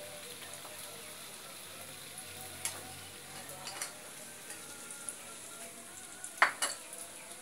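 Snacks deep-frying in oil in a wok: a steady sizzle with small crackles. Sharp clacks come a few times, the loudest cluster about six and a half seconds in.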